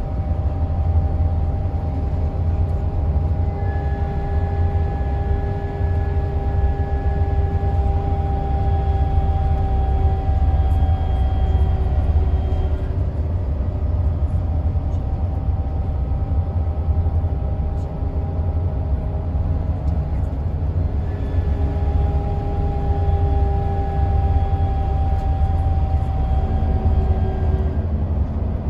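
Mercedes-Benz Travego 15 SHD coach heard from inside the cabin: a steady low drone of the drivetrain and road, with a whine from the retarder braking the coach. The whine sets in a few seconds in, falls slowly in pitch, stops about halfway, then comes back about two-thirds of the way through.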